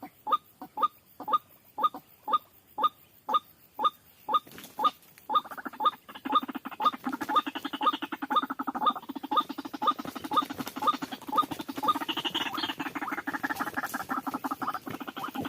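White-breasted waterhens calling. A regular series of short croaking calls comes about two a second, and about five seconds in a second, much faster run of calls joins and continues alongside.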